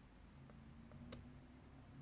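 Near silence: faint room hum with a couple of soft clicks, the clearest about a second in.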